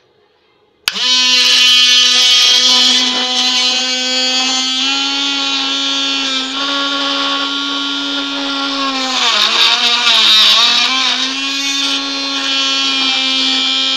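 Homemade mini bench drill press's 12-volt DC motor switched on with a click about a second in, then running with a steady whine as the bit is pressed into cardboard. About nine seconds in its pitch sags for a couple of seconds as the bit bites and loads the motor, then recovers.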